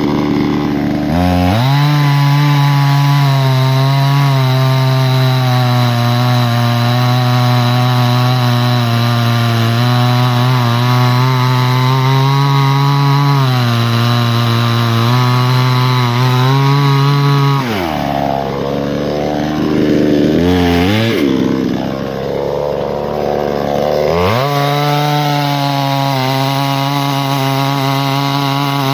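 Two-stroke chainsaw held at full throttle, cutting through wood with a steady high note. Past halfway it drops and wavers in pitch for several seconds, then revs back up to full speed and cuts on.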